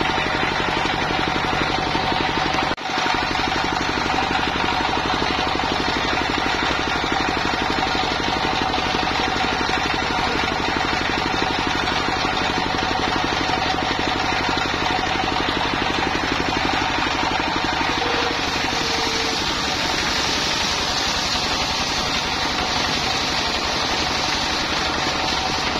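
A single-cylinder stationary diesel engine runs steadily, driving a circular saw bench, with an even rapid chugging and a brief dip about three seconds in. From about two-thirds of the way through, a higher hiss joins as a log is fed into the saw blade.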